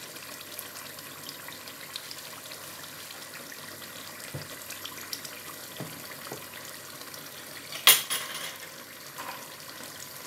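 Tomato stew with meat bubbling in a large pot, a steady crackling simmer with small pops. A single sharp knock about eight seconds in is the loudest sound.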